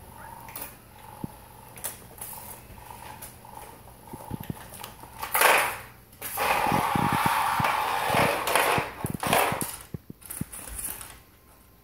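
A cat at play on a wooden floor: a few light taps at first, then from about five seconds in a few seconds of loud rustling and scrabbling with soft thumps, which stops about ten seconds in.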